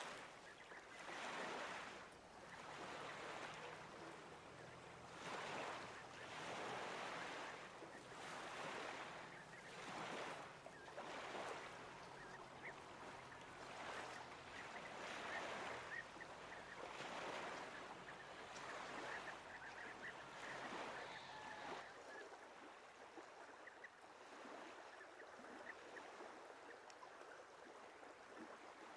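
Small waves washing in a slow, even rhythm at a lake shore, with faint waterfowl calls. A little over two thirds of the way through, a low hum under the waves cuts off and a quieter, steadier wash of open water remains.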